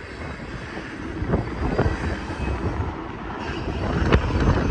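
Freight train rolling past with a low, steady rumble, mixed with gusty wind buffeting the microphone.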